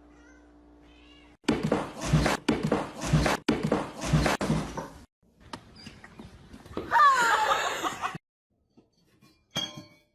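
A cat meowing once, about seven seconds in, after a few seconds of loud noisy sound with three low thumps.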